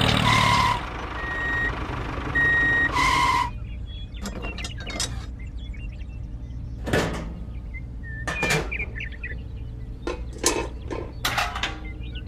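Reversing alarm beeping, four short beeps in the first three seconds or so, over a steady low motor hum; after that, scattered sharp clicks and knocks.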